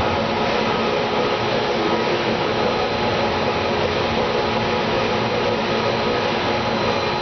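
Steady machine noise: a constant hiss carrying a low hum and several steady tones, unchanging throughout.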